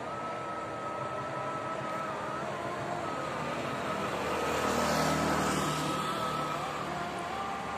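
Car passing on the toll road below, its tyre and engine noise swelling about five seconds in and fading again, over steady distant traffic noise.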